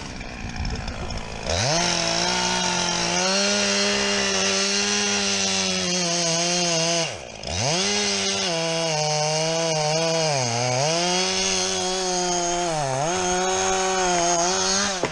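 Two-stroke chainsaw held at full throttle, cutting into a tree. Its engine note drops away briefly about halfway through, then sags twice under load as the chain bites, before cutting off near the end.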